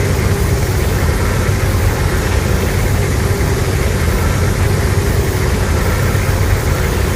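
Legendary's MonsterVerse Godzilla sound effect: a loud, steady, low rumbling roar with no break.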